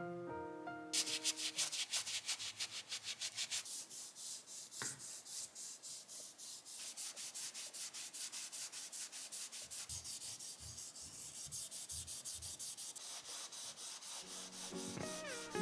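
Cotton cloth rubbed back and forth over wooden kitchen utensils, working oil into the wood, in quick scratchy strokes about four or five a second.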